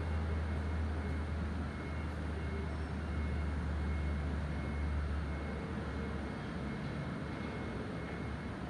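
An unidentified deep, steady low drone, strong and unbroken, that weakens and stops about six seconds in, over a background of outdoor noise.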